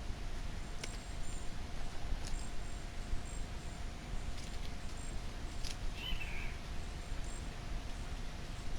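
Pectoral sparrow (tico-tico-de-bico-preto) giving short, very high, thin notes, repeated roughly once a second, with a few sharp clicks and a low background rumble.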